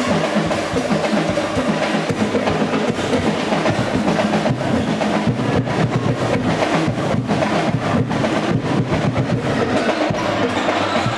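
Drums beating a fast rhythm, with crowd noise behind.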